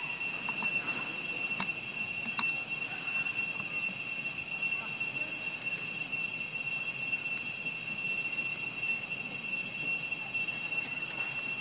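Steady, high-pitched ringing drone of forest insects, an unbroken chorus holding two fixed pitches. Two faint short clicks sound about one and a half and two and a half seconds in.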